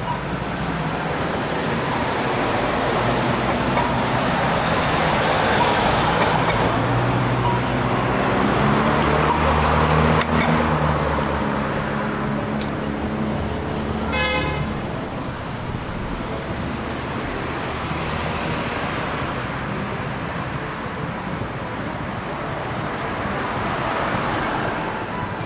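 Street traffic passing, cars going by in swelling and fading waves, with a heavier vehicle's engine hum building about a third of the way in. Near the middle there is a short horn beep.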